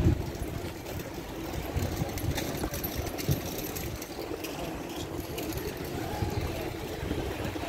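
City street ambience: a low, steady hum of traffic with scattered knocks and clicks, and one sharper knock about three seconds in.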